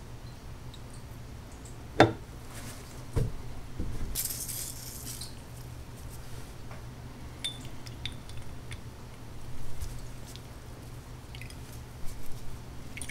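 Small metal toy-motor parts clinking against a glass jar as they are handled and set into rust remover. There is a sharp click about two seconds in, a brief hiss of liquid about four seconds in, and scattered light clinks after that.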